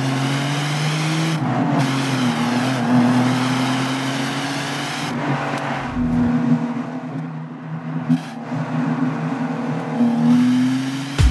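Alfa Romeo 156 GTA's 3.2-litre V6 engine and exhaust running as the car drives under throttle, its pitch rising and falling as it is revved and eased off.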